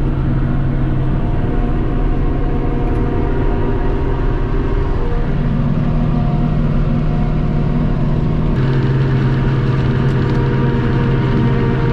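Heavy diesel farm-machinery engine running steadily under load. Its note shifts about five seconds in and again near nine seconds, where a rushing noise above it also grows louder.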